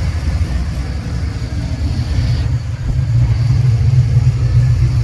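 Vehicle engine running with a steady low exhaust rumble that grows a little louder in the second half. The owner wonders whether it is an exhaust leak.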